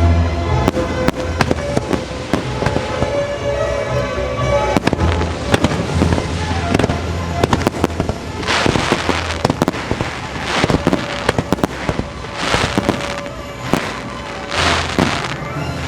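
Fireworks show: sharp firework bursts and pops over the show's music soundtrack, with several crackling rushes about a second long in the second half.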